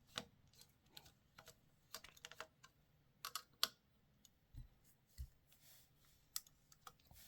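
Scattered faint clicks and light knocks of a Phillips screwdriver working the screws of a wall power socket, with two soft low thumps about halfway through.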